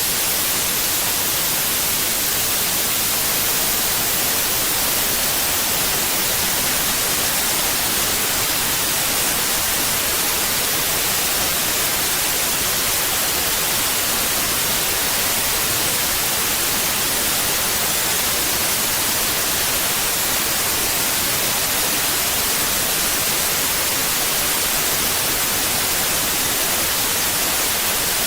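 Steady white noise: an even, unchanging hiss across the whole range, brightest in the treble.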